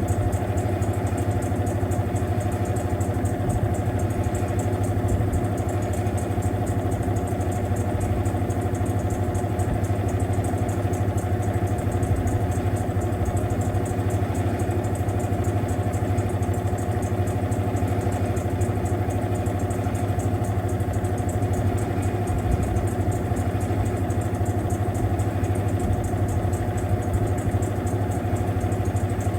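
Mueller Popmatic 8 kg washing machine running, a steady motor hum with a higher whine over it that does not change.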